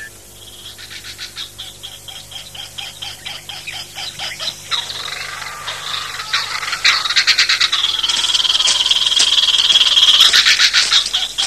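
Soundtrack jungle ambience of frogs croaking in a rapid clicking chorus that grows louder and denser, joined about eight seconds in by a high steady trill for a couple of seconds.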